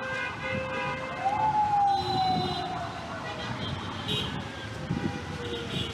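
A siren wailing once on a city street: its pitch rises quickly about a second in, then falls slowly over the next four seconds. Steady traffic noise underneath.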